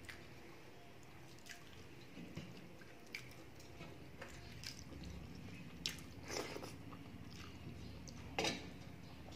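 Eating by hand: chewing and fingers mixing rice on a metal plate, heard as scattered short smacks and clicks, the loudest about six and eight and a half seconds in.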